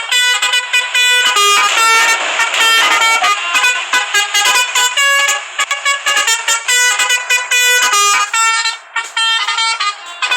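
Basuri 'telolet' musical air horn on a bus playing a fast tune: a loud run of short horn notes that jump between pitches several times a second, going on and on.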